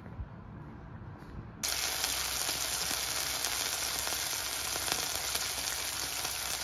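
Pork chop sizzling in hot oil in a frying pan, with garlic cloves and rosemary; a steady, loud sizzle that starts suddenly about a second and a half in and cuts off abruptly at the end. Before it, only a low rumble.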